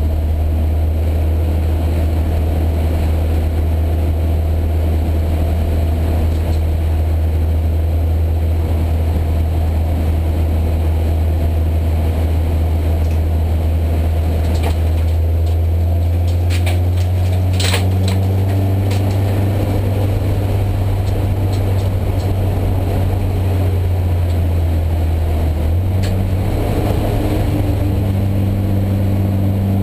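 Race car engine running hard, heard loud from inside the stripped, roll-caged cabin at racing speed. The engine note steps up in pitch about halfway through and again near the end. A few sharp rattles or knocks come in the middle.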